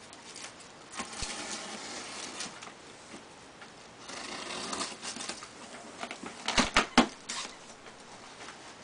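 Utility knife scraping and slicing through packing tape on a cardboard box, then the cardboard flaps being pulled open, with rustling of cardboard and packing peanuts. A few sharp knocks and cracks about two-thirds of the way through are the loudest part.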